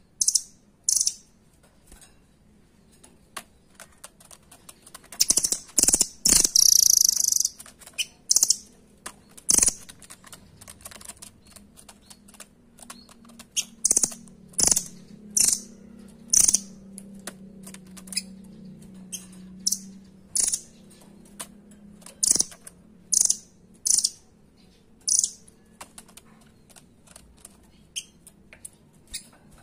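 Caged rambatan doraemon (blue nuthatch) giving short, sharp, high-pitched calls, singly and in quick rapid runs, mixed with sharp clicks and taps as it hops and pecks on the cage perch.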